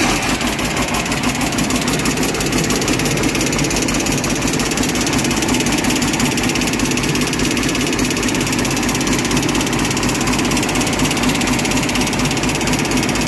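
Excavator diesel engine running steadily and loudly close to the engine bay, driving its hydraulic piston pumps, which the operator reported rattling.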